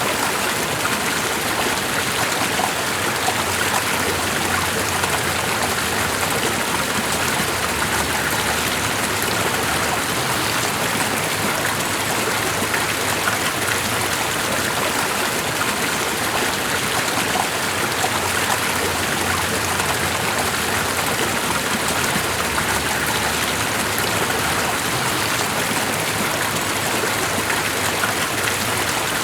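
Flowing water, a stream running in a steady, unbroken rush with no change throughout.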